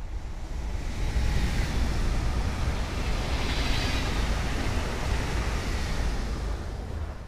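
PKP Intercity ED160 (Pesa Dart) electric multiple unit passing at speed: a rushing noise of the train and its wheels on the rails that swells over the first couple of seconds, is loudest in the middle and fades away near the end.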